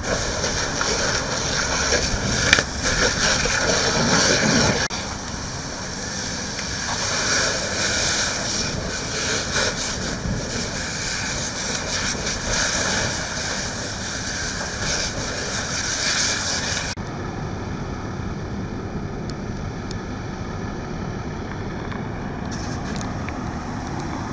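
A firefighter's hose stream hitting a burning pickup truck: a loud, steady rushing hiss of water spray and steam, loudest in the first few seconds. About two-thirds of the way through the hiss cuts off abruptly, leaving a quieter, lower steady rumble.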